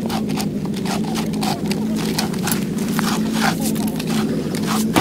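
Hand ice auger boring through thick ice: its blades scrape and crunch in quick repeated strokes as it is turned.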